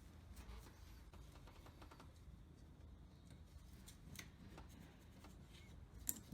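Near silence: low room tone with a few light clicks and one sharper click near the end.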